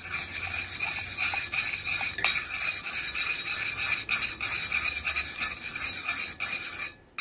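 A spoon stirring sugar into hot tea in a stainless steel saucepan, scraping steadily against the pan's bottom, stopping shortly before the end.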